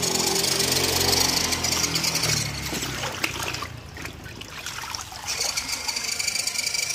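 Water sloshing and splashing in a plastic tub as a toy RC Land Rover D90 off-road truck is dunked and turned over in it by hand. A low steady hum runs under it for the first two seconds or so. The water noise drops off for a moment in the middle, then picks up again.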